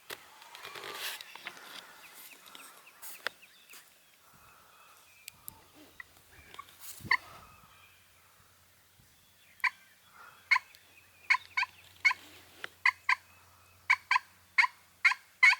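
Turkey yelping: a run of short, evenly spaced notes that speeds up near the end, after some rustling and a few sharp snaps in the first half.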